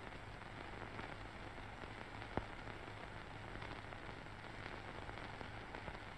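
Faint hiss and crackle of an old film soundtrack over a low steady hum, with one sharp click about two and a half seconds in.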